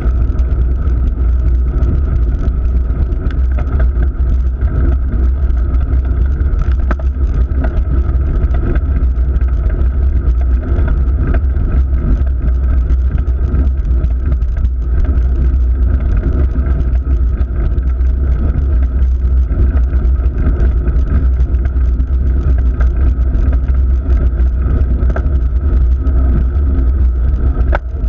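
Steady low rumble of a road bike rolling over asphalt, picked up by a handlebar-mounted GoPro: tyre and road vibration through the bars, mixed with wind on the microphone.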